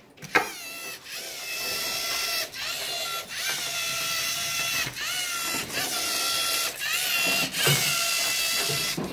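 LEGO Mindstorms EV3 robot's servo motors whining through their gears as it drives, stopping and starting about seven times, with the pitch rising briefly at the start of each move. A sharp click just after the start.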